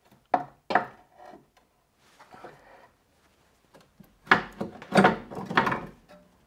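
Compressed rear coil spring and internal spring compressor being worked out of the lower spring seat by hand. Two short knocks come near the start, then a run of louder knocks and scraping about four seconds in.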